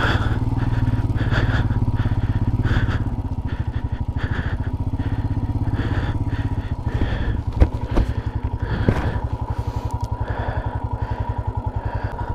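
Motorcycle engine running at low revs, with an even pulsing beat. A few sharp knocks come about seven and a half to nine seconds in.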